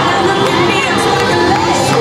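Crowd cheering and shouting over loud cheerleading routine music.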